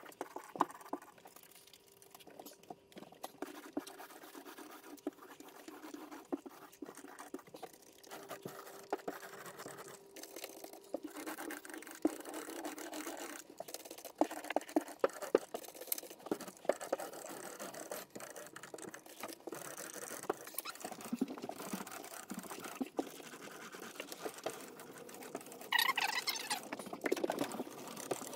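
Paintbrush and roller strokes on walls during second coats of paint, played at double speed: quiet, steady scratching with many scattered light clicks, and a short louder stretch near the end.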